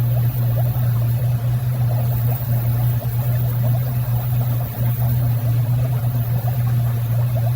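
A steady, loud low hum that does not change, with a faint crackle above it.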